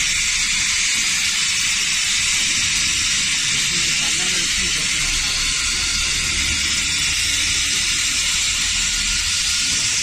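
Robotic laser welding of a sheet-metal part: a steady, unbroken high hiss as the laser head runs along the seam.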